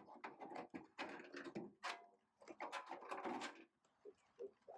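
Dense run of small clicks, knocks and metal rattles as the door lock is worked free and taken out of a car door shell, thinning out to a few light taps about three and a half seconds in.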